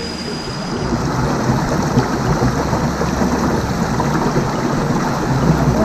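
Shallow rocky river running over stones: a steady loud rushing with a low rumble underneath.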